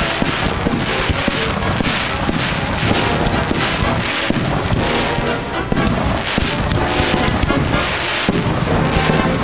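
Music playing with fireworks firing in a rapid barrage, shot after shot with the pops of small aerial bursts.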